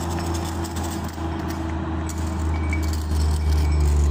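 Truck engine running with a steady low drone, a little louder from about three seconds in, with light metallic clinks from the metal ratchet and hook of a tie-down strap being handled.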